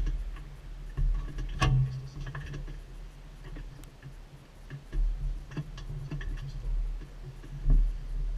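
Scattered clicks and light knocks of a seat harness being strapped and buckled on a bare steel buggy frame, over a low steady hum.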